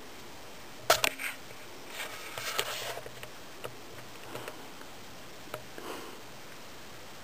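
A sharp click about a second in, then a French bulldog sniffing and snorting for about a second, followed by a few faint clicks.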